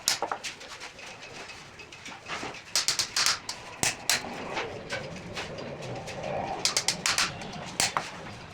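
Pigeons cooing softly, with clusters of sharp clicks or taps every few seconds.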